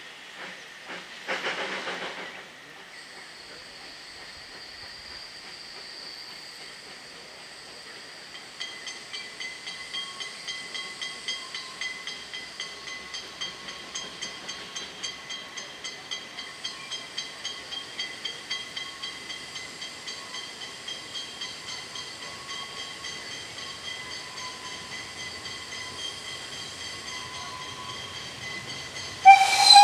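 Narrow-gauge steam locomotive hauling a passenger train toward the listener: steady steam hiss, with even exhaust beats at about two and a half a second starting about eight seconds in and a thin high squeal riding over them. A short rush of noise comes about a second and a half in, and the steam whistle starts right at the end.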